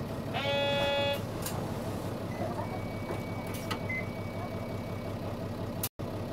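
Inside a Nissan Diesel Space Runner bus (KC-RM211GAN): the diesel engine running with a steady low hum, and about half a second in a short buzzer tone, under a second long.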